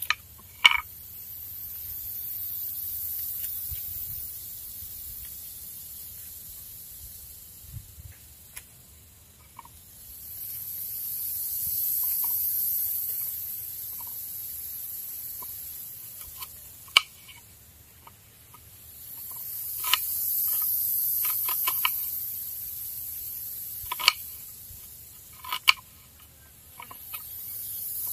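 Knife cutting a small red onion on a small wooden cutting board, with a few sharp clicks of the blade against the board, the loudest of them about 17, 24 and 25 seconds in. Behind it a high hiss swells and fades about every nine seconds.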